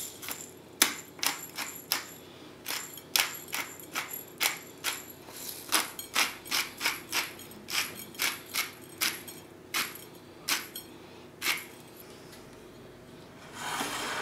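Hand-turned pepper mill grinding peppercorns: a run of sharp clicks and cracks, about two a second, that stops a few seconds before the end. A short rustle follows near the end.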